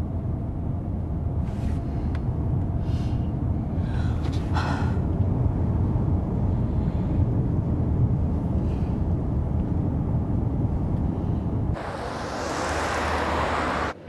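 Steady low rumble of road and engine noise inside a moving car's cabin. Near the end it gives way to a brighter, even hiss.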